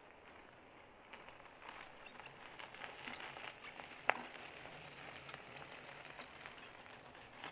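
Mountain bike tyres rolling over a gritty, icy road, a faint crackling rustle that grows from about a second in. A single sharp click about four seconds in.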